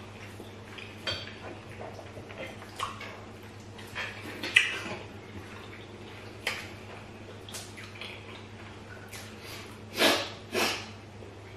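Close-up eating sounds: scattered wet smacks, lip and mouth clicks of people chewing and eating rice balls and soup with their hands. Two louder, short, breathy sounds come one after the other near the end.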